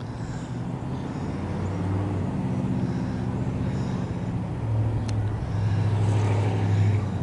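Steady low engine drone, growing louder over the first couple of seconds and then holding.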